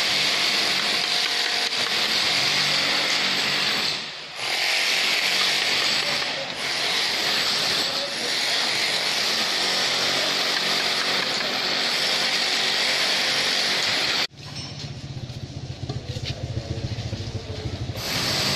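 A loud, steady machine noise, hissing and high, that cuts off suddenly about fourteen seconds in and gives way to a small engine running with a low throb.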